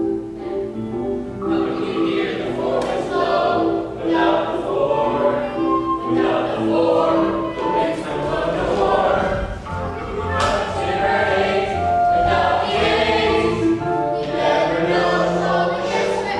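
Young cast chorus singing a musical-theatre ensemble number together over instrumental accompaniment.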